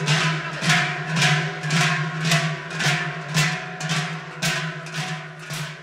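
Large cowbells worn on the backs of Basque joaldunak, clanging in unison about twice a second with the marching step, over a steady low hum, growing fainter near the end.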